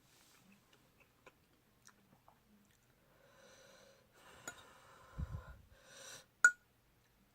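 A person breathing hard through the mouth in several breathy pulls while eating spicy noodles, the mouth burning from the heat, with small eating clicks. A dull bump comes about five seconds in and a sharp click about a second later.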